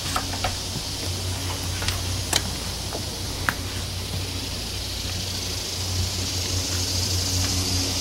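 Steady high-pitched insect chorus from the woods, growing louder near the end, with a few sharp clicks in the first few seconds.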